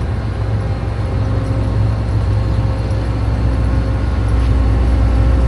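An engine running steadily, with a deep low drone and no change in speed.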